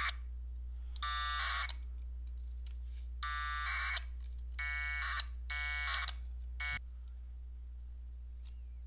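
Packet radio modem tones: several short, buzzy data bursts of about half a second each, at irregular spacing, as the Winlink packet link exchanges frames while it disconnects. A steady low hum runs under them and drops off near the end.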